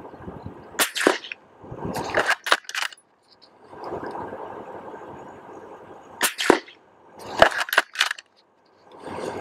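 Rifle shots heard at the paper target: sharp cracks in quick pairs and clusters, four groups in all, with a steady faint outdoor hiss between them.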